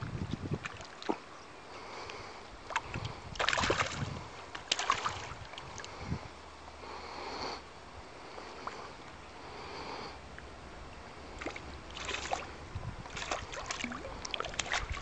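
River water sloshing and splashing in irregular bursts, with a few short sharp clicks.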